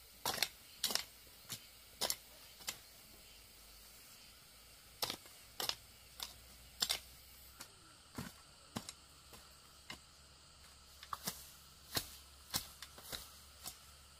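A run of sharp, irregular clicks and snaps, some in quick pairs or small clusters, about twenty in all over a faint steady background.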